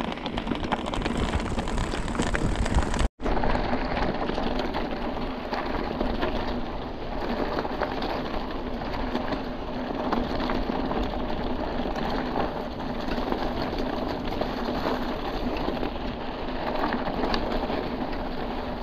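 Mountain bike rolling over a stony trail: a steady crunch of tyres on gravel and the rattle of the bike, broken off for an instant about three seconds in.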